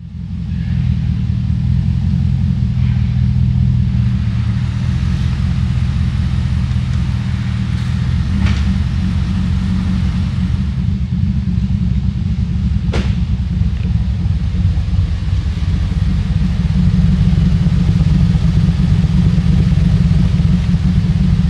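Cammed 5.3-litre V8 of a Chevy Silverado running steadily, a deep, even exhaust rumble.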